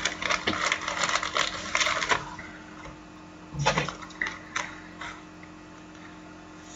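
Trading cards and their packaging being handled: a run of light rustles and clicks for about two seconds, then a few scattered taps.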